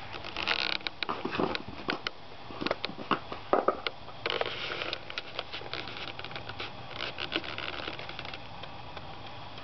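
Irregular taps, clicks and rustling, busiest in the first half and thinning out after about five seconds, with no voice.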